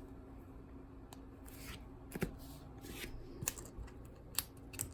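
Sports cards in plastic sleeves being handled and taken out of a box: quiet rustling with a few light clicks, about one a second.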